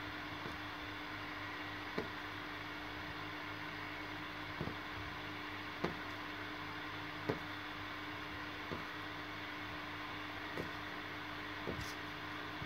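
Steady electrical or machine hum with a low drone, and soft short taps every second or so as cut fabric pieces are handled and laid down on a wooden table.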